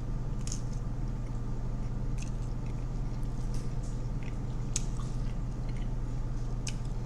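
A person biting and chewing a slice of thin-crust Philly cheesesteak pizza close to the microphone: soft wet smacks and small clicks every second or so, over a steady low hum.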